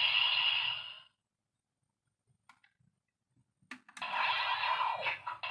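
Electronic sound effects from a Bandai Kamen Rider Blade toy belt buckle, played through its small speaker. One effect cuts off about a second in. After a pause with a few light plastic clicks, another effect starts about four seconds in.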